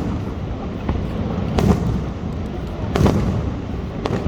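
Fireworks bursting: two loud booms about a second and a half and three seconds in, with smaller pops between, over a steady low rumble.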